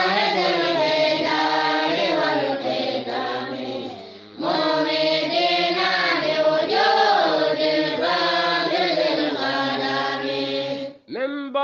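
A group of voices chanting Arabic verses of a devotional poem in unison, in long drawn-out melodic lines. The chant dips briefly about four seconds in, then resumes. Near the end it stops and a single voice begins the next line.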